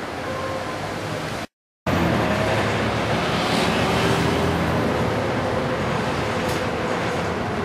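Coach engine and road noise heard from inside the passenger cabin: a steady rumble with a hiss of tyres and wind. It cuts out briefly about a second and a half in, then comes back a little louder.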